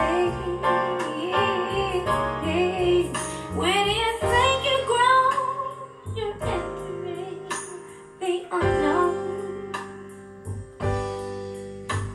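A slow blues song played back through Lii Audio Silver-8 8-inch full-range drivers in MLTL column cabinets and heard in the room. A woman's voice sings a wordless, sliding line over piano and bass for the first half, then the band plays on alone with sustained chords and a few sharp hits.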